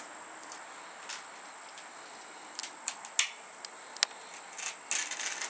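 A knife cutting and peeling the fibrous outer sheaths off a cabbage palm (swamp cabbage) stalk: scattered short crisp snaps and scrapes, then a longer rough tearing scrape near the end.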